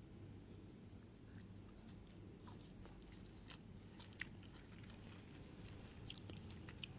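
Faint close-up chewing and biting of a biscuit: small crisp crunches and mouth clicks scattered through, with one sharper click a little past the middle.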